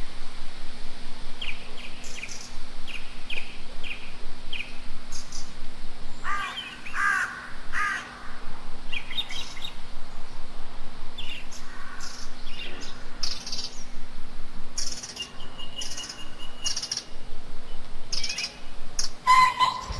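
Several birds chirping and calling in overlapping short phrases, with a few harsher, lower calls about a third of the way in and a held whistled note later on.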